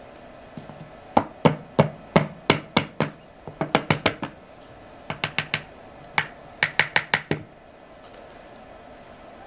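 A plastic soap mould knocked again and again against a board to free a bar of cured olive-oil soap: about two dozen sharp knocks in quick bursts of a few at a time.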